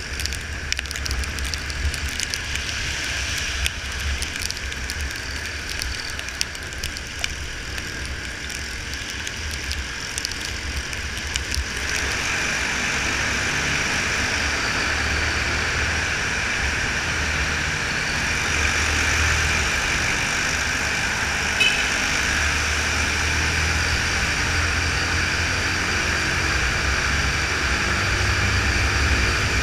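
Onboard sound of a Yamaha Fazer 250 motorcycle riding in wet traffic: its single-cylinder engine runs under steady wind rush, with scattered sharp clicks in the first part. About twelve seconds in the bike enters a road tunnel, and the noise becomes a steadier, slightly louder rush of engine and traffic echoing off the tunnel walls.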